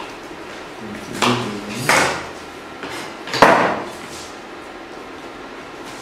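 Kitchen clatter: several knocks and clanks of cookware and utensils, the loudest about three and a half seconds in.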